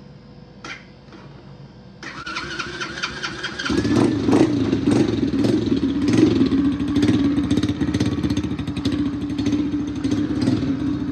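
Chinese X-Pro 125 four-wheeler's small four-stroke engine being started. After a click, the electric starter whines for about two seconds, then the engine catches and keeps running steadily.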